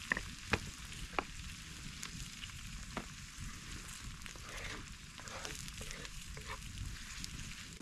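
Food sizzling in hot oil in a pan over an open wood fire: a steady frying hiss with a few sharp pops, most of them in the first three seconds.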